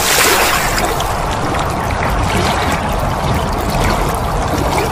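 Steady rushing, water-like hiss of an animated intro's sound effect, like liquid pouring.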